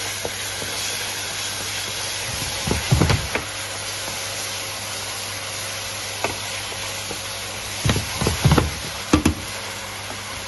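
Ground onion paste sizzling steadily as it fries in hot ghee in a stainless steel pan. A wooden spatula knocks against the pan in short clusters while stirring, about three seconds in and again around eight to nine seconds in.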